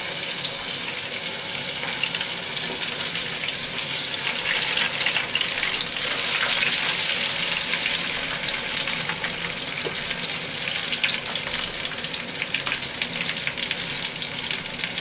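Parboiled cassava (mogo) chips deep-frying in a saucepan of hot oil: a steady sizzle thick with fine, fast crackling.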